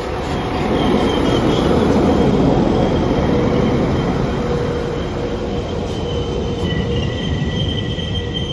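A Northern Class 195 diesel multiple unit running into the platform and slowing: a low rumble of wheels and underfloor engines, loudest as the coaches pass close by a second or two in. About two-thirds of the way through, thin high squealing tones join in as the train brakes towards its stop.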